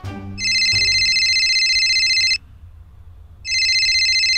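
Mobile phone ringing with a high electronic ringtone: two rings, the first about two seconds long, then a pause of about a second before the second.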